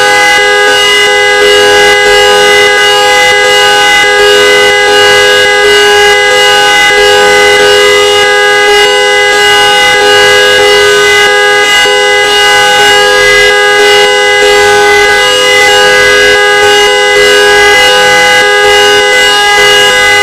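Car trumpet horn sounding continuously: a loud, steady chord of several tones that holds without rising or falling.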